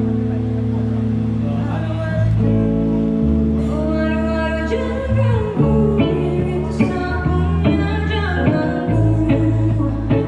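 A live band plays through a PA system with sustained keyboard and bass chords. A singing voice comes in about four seconds in.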